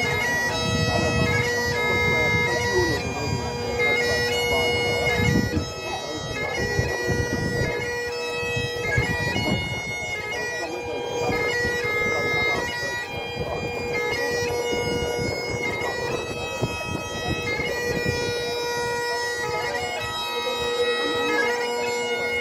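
Great Highland bagpipe playing a slow piobaireachd: the drones hold one steady note beneath the chanter's melody of long held notes, broken by quick grace notes at each change of note.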